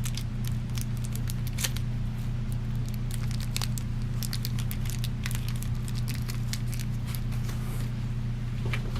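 Scattered small clicks and scrapes of a screw being fitted and metal fan parts being handled, over a steady low electrical hum.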